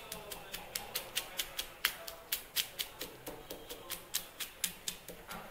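Stone pestle pounding ghee-roasted almonds, peanuts and cashews in a stone mortar: sharp knocks about three times a second as the nuts are crushed.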